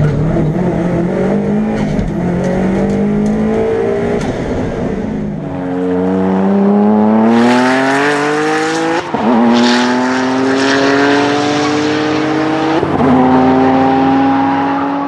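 Subaru Legacy RS Group A's 2.0-litre turbocharged flat-four boxer engine under hard acceleration. Its pitch climbs steadily and drops sharply at two upshifts, about nine and thirteen seconds in.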